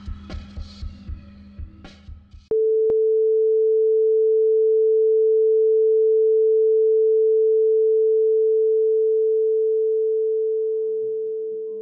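A low throbbing pulse, about four beats a second over a steady hum, cuts off about two and a half seconds in and gives way to a single loud, steady pure tone like a test-tone beep, with one click just after it starts. The tone holds for about eight seconds and fades near the end as faint musical notes come in.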